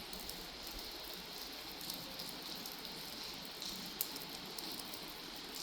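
Steady rain falling, with scattered small drop ticks and one sharper tick about four seconds in.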